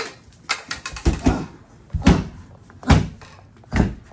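Four heavy thumps about a second apart, with lighter knocks between them: impacts in a wrestling bout.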